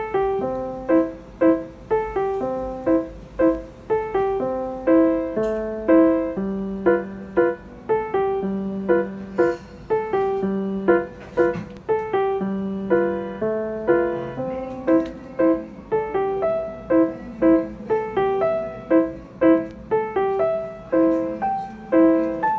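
Background solo piano music: a gentle melody of repeated notes at about two a second over a lower line.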